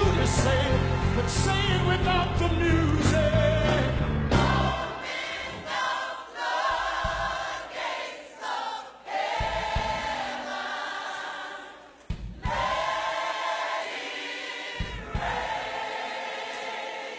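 Gospel choir singing with a band. About four and a half seconds in, the bass drops out, leaving the choir's held chords broken by a few short low hits.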